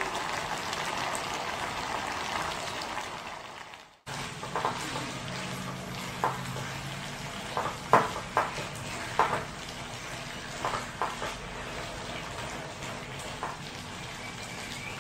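Ground beef and green beans sizzling in a stone-coated frying pan, cutting out briefly about four seconds in. After that a spatula knocks and scrapes against the pan about a dozen times over the sizzle, loudest about halfway through.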